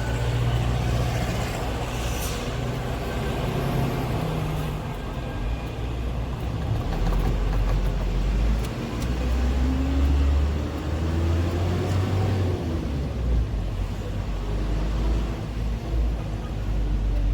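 Lorry engine running under way with road rumble; the engine note climbs for a few seconds past the middle, then drops.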